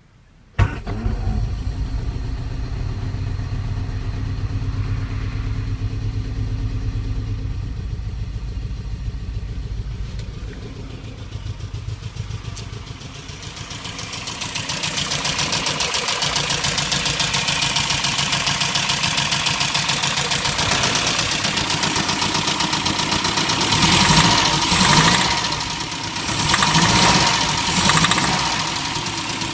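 A Mini's engine starting about half a second in and running, with a few short revs near the end; the knock it makes is rod knock, a worn connecting-rod bearing.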